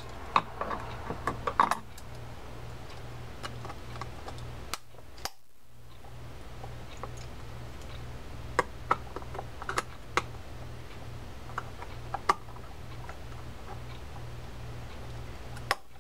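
Irregular small metal clicks and taps of pliers against reel parts as a clip is worked into place on a D.A.M. Quick spinning reel's top assembly.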